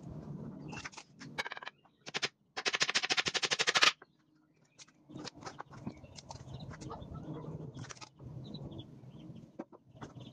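Hammer striking nails into a wooden batten frame: a few separate knocks, then a fast rattling run of blows for about a second and a half, the loudest part, followed by softer scattered knocks and handling of the wood.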